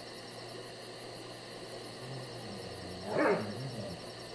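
A short animal call about three seconds in, low and wavering with one loud peak, over a steady outdoor background with a fast, even high-pitched pulsing.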